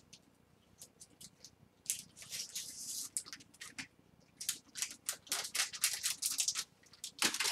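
Clear plastic card sleeves and holders being handled: crinkling and light clicking, with a burst of crinkle about two seconds in and a run of short rustles and clicks through the second half.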